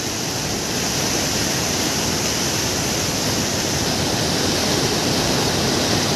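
Steady, loud rush of a large waterfall in flood, heavy water of the Kaveri pouring over the falls, swollen by dam releases upstream.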